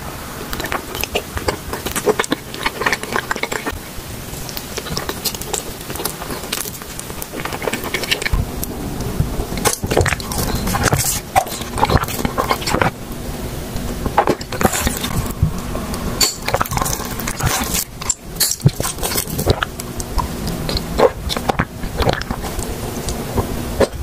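Close-miked mouth eating sounds: a long string of crisp crunches and clicks as ice and soft sweets are bitten. A low hum runs underneath from about eight seconds in.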